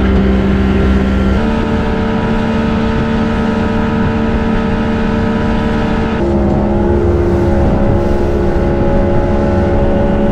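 Twin Mercury outboard motors running at speed, a steady loud drone whose pitch shifts abruptly twice.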